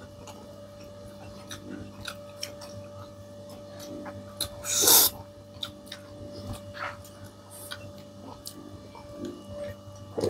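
A person eating at close range: small chewing and mouth clicks throughout, with one loud rushing breath-like burst about halfway through, over a steady low hum.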